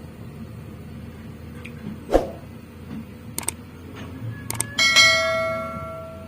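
A few light clicks and knocks, then near the end a single loud metallic ring that fades away over about a second, like a small bell or a struck piece of metal.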